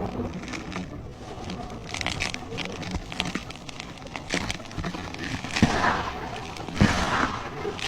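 Dry cement being crumbled: a gritty, irregular crackling and crunching. The two loudest crunches come about six and seven seconds in.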